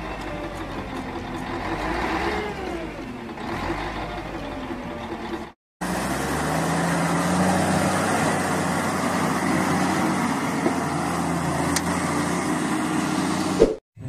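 Diesel dump trucks running while tipping their beds, in two clips. In the first the engine pitch wavers up and down. After a brief silent break about five and a half seconds in, a second tipper's engine runs steadily under a heavy rushing noise as sand slides out of its raised bed.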